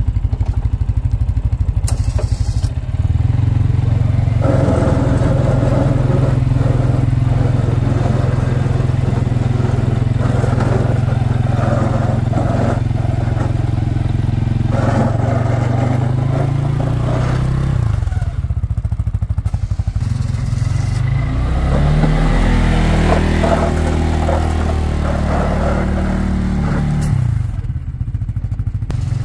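CFMoto CForce 600 ATV's single-cylinder engine running under load while plowing snow. It gets louder about three seconds in, and its pitch rises and falls several times in the second half.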